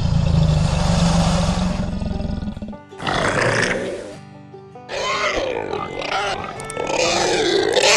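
Music with animal calls over it: a long, rough roar that fades after about two and a half seconds, then a run of wavering animal cries from about five seconds in.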